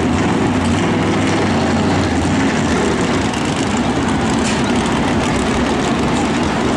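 Steady engine drone over a broad background rush, with a low hum that fades about two and a half seconds in.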